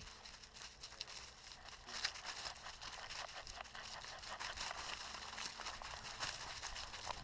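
Crunching, rustling steps on the trail ground, many irregular crackles in quick succession.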